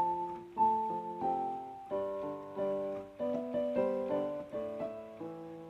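Background piano music: single notes and chords struck one after another at a moderate pace, each fading after it is played.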